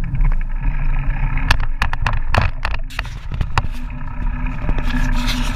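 Bicycle ride: a steady low rumble with a run of sharp rattling clicks through the middle.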